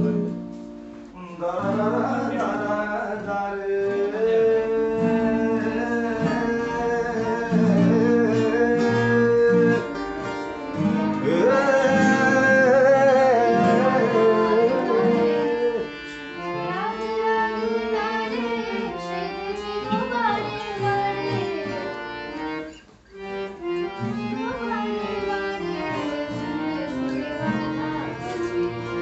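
Several acoustic guitars playing together with singing over them, with a brief drop in the music a little after the middle.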